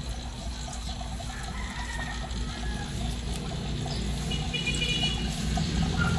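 A plastic spoon stirring fish pellets in a plastic cup, with faint scattered clicks, over a steady low hum. A few short bird calls sound in the background.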